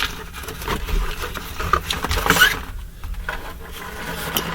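Rustling and scattered light clicks of a plastic model kit's box and parts being handled.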